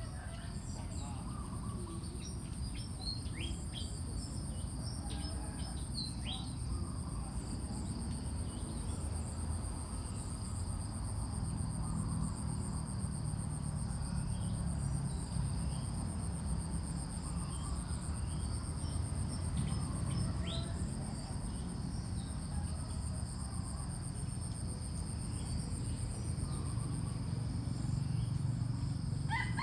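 Steady high-pitched drone of insects, with short bird chirps scattered through it, several in the first few seconds and a few more later. A low steady rumble runs underneath, growing louder about twelve seconds in.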